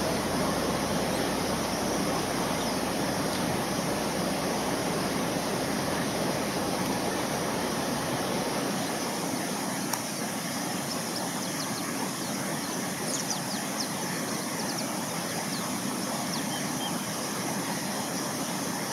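Steady rushing outdoor noise, with a low rumble that drops away about nine seconds in, and a few faint high chirps in the second half.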